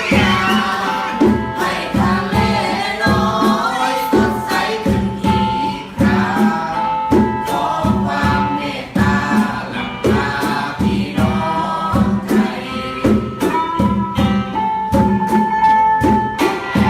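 Music with a steady beat and voices singing together.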